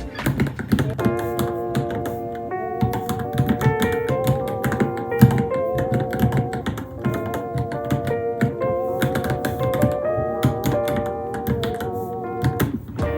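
Typing on a Varmilo Minilo mechanical keyboard, a fast irregular patter of key clicks, over background music with a wavering melody line.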